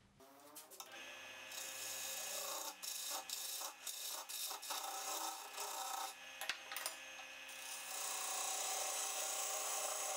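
A wood lathe starts up and spins up to speed, then a turning gouge cuts the spinning apricot-wood piece. The cut is a steady hiss over the motor's hum, with brief breaks where the tool lifts off.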